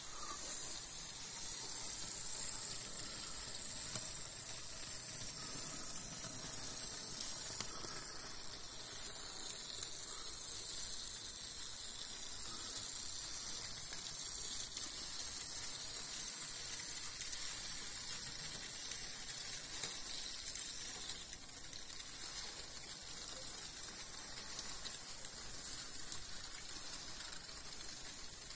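Old Piko GDR-made model of a class 55 steam locomotive, now well run in, running slowly along model railway track: its small electric motor and its wheels on the rails make a steady hiss-like noise.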